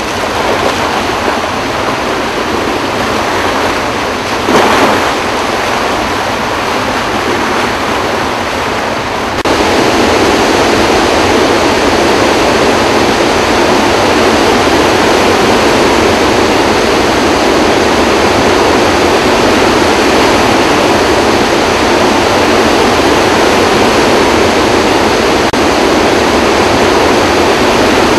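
Flood release pouring through the open spillway gates of a large dam, loud, steady rushing and churning of whitewater. About nine seconds in it becomes louder and fuller.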